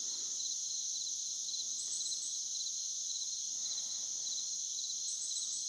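Insect chorus of crickets: a steady high shrill trill with regular pulsed chirps a few times a second beneath it, and twice a short run of higher chirps.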